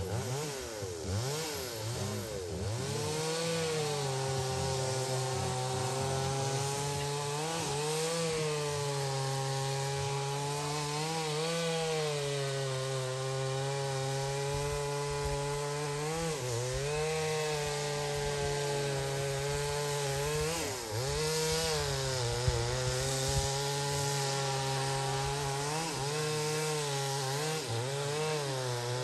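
A small engine running continuously with a steady pitched drone, its speed sagging and picking back up every few seconds.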